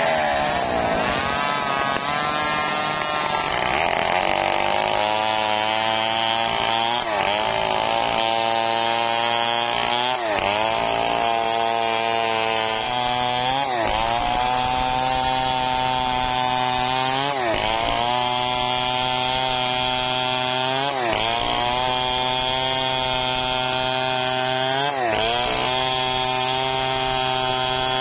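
Stihl two-stroke chainsaw running at full throttle while ripping lengthwise through a mahogany log. Its engine pitch dips briefly under load and recovers about every three to four seconds as the bar is worked through the cut.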